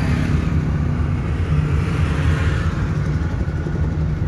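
Small manual car driving along the road, heard from inside the cabin: a steady engine drone and road rumble.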